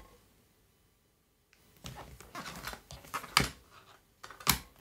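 Small clicks and knocks of a foldable 3-in-1 wireless charger being handled and unfolded on a desk. Two sharper clicks come about three and a half and four and a half seconds in.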